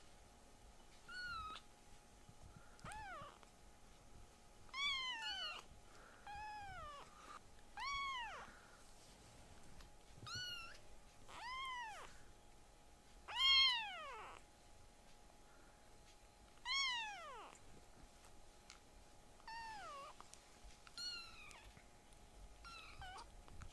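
Tiny kitten meowing over and over: about a dozen high cries, each rising and then falling in pitch, the loudest a little past halfway.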